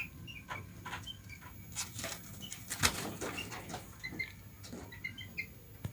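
Jungle fowl chicks giving short, faint high peeps, mixed with scattered rustles and sharp clicks, the loudest click about three seconds in.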